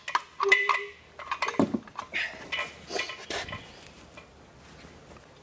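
Hard plastic and metal parts clicking, clinking and knocking as equipment is handled and fitted together: a string of irregular knocks and rattles that dies down after about four seconds.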